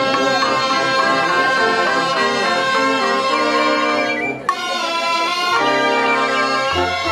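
Cobla playing sardana music, with brass (trumpets and flugelhorn-type fiscorns) carrying a melody of held notes over a double bass. A new phrase starts with a brief break about four and a half seconds in.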